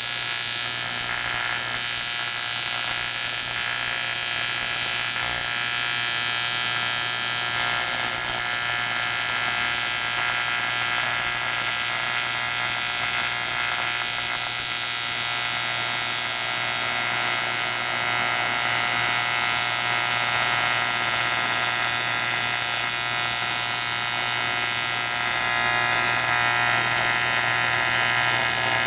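AC TIG welding arc on an aluminium Harley twin cam cylinder head: a steady electric buzz that grows slightly louder in the last few seconds.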